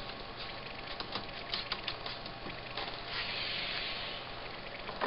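Scattered light clicks and taps, with a short hiss about three seconds in.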